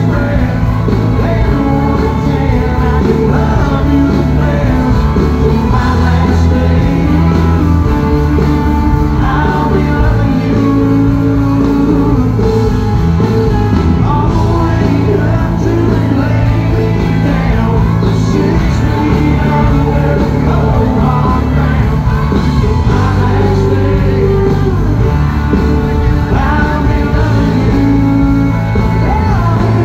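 Live country-rock band playing loud through a PA, with a male lead vocal over electric guitars and a steady bass line, heard from within the concert crowd.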